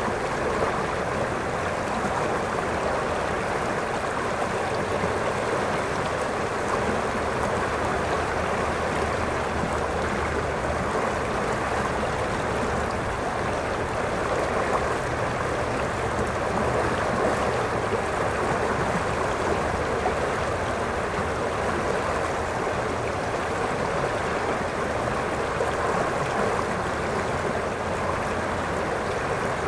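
River water rushing steadily over a shallow rocky riffle, an even, unbroken rush.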